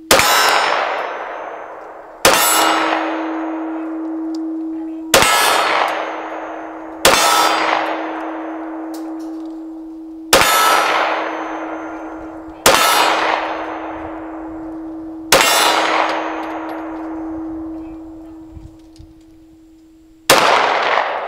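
Glock 23 pistol fired through a 9mm conversion barrel: eight slow, deliberate shots spaced two to five seconds apart. Each shot hits a steel silhouette target, which clangs and then rings on as a steady tone between shots.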